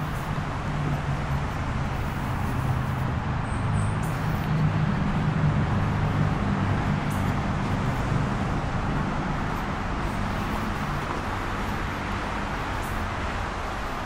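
Steady noise of freeway traffic, a continuous rumble and hiss with no separate events standing out.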